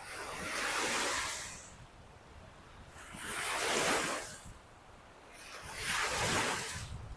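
Lake Michigan waves breaking and washing up a beach, three surges of surf about two and a half seconds apart, each building to a hiss and falling away. They are short, choppy lake waves stirred up by an approaching storm.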